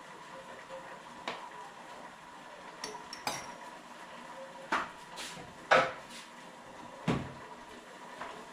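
Dishes and cutlery clinking during a meal: about six separate clinks and knocks at uneven intervals, some with a brief ringing, the loudest a little past halfway.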